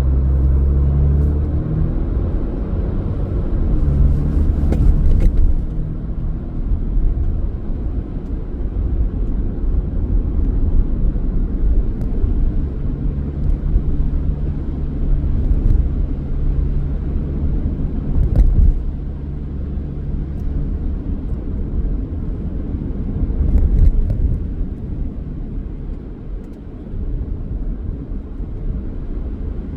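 A car driving: a steady low engine and road rumble, with an engine hum that comes and goes and a few faint clicks.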